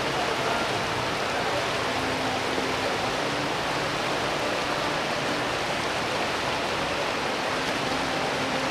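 Steady rushing noise like flowing water, even and unbroken throughout.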